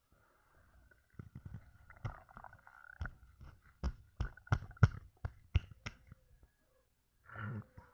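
Stomach gurgling, heard close up, from a belly full of chugged Coca-Cola. It is a run of wet pops and clicks that grows denser and louder, settling to about three a second. A short low rumble comes near the end.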